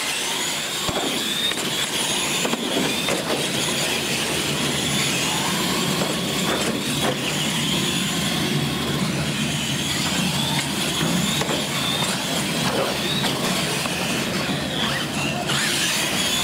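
Electric radio-controlled monster trucks running flat out, their motors and gears giving a high whine that wavers up and down with the throttle.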